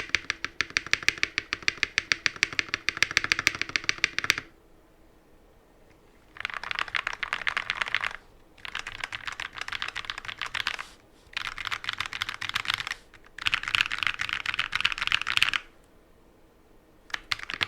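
Rapid typing on a Feker FK68T hot-swap mechanical keyboard fitted with linear Akko Rose Red switches. It comes as several quick runs of keystrokes, each a few seconds long, with short pauses between them.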